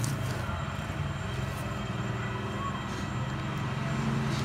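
A steady low mechanical hum, like an engine running, with a few faint clicks and rustles from a taped parcel being handled.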